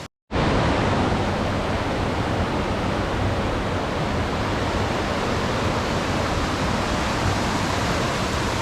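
Steady, loud roar of a rushing waterfall in full flow after heavy rain, starting abruptly a fraction of a second in.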